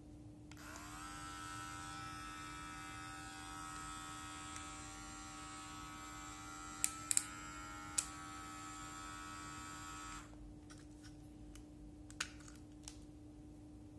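Uiter Pro cordless hair clipper switched on, its motor whirring up to speed about half a second in and running steadily. A few sharp button clicks come around the seven- and eight-second marks, with a slight shift in the motor's pitch, and the motor is switched off just after ten seconds, followed by a few faint handling clicks.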